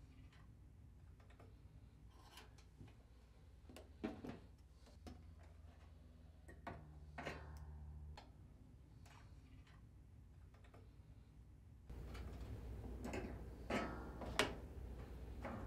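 Faint, scattered clicks and taps of pliers and a metal door spring as the spring is hooked onto a dryer door hinge and the panel.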